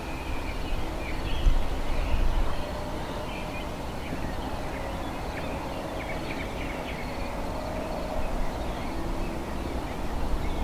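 Small birds chirping in short, scattered calls over a low rumble of wind on the microphone. The wind is strongest in the first couple of seconds and then eases, and a faint steady hum is under it.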